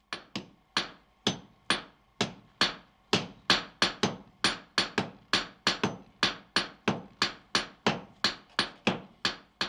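Hammer blows striking a glowing steel billet on an anvil while a Japanese sword is forged, in a steady rhythm of a little over two sharp blows a second.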